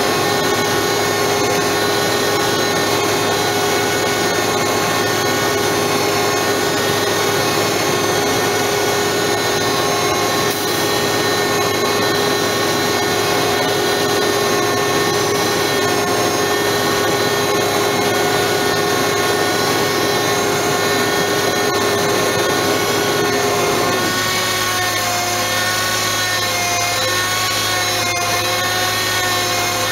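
Bed truck's engine running with its winch engaged, a steady mechanical whine; about 24 seconds in the pitch drops and starts to waver as the winch line takes up the load of the stuck cement bulker.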